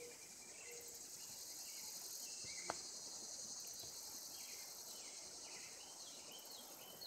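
Steady high-pitched insect chorus, swelling a little through the middle, with one sharp click about two and a half seconds in.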